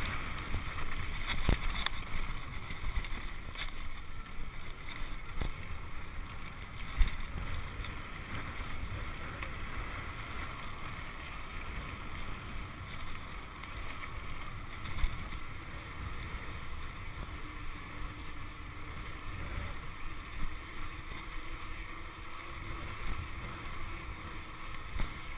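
Electric bike riding over a rough dirt track: steady wind rush on the chest-mounted camera's microphone and tyre rumble, with a few sharp knocks from bumps.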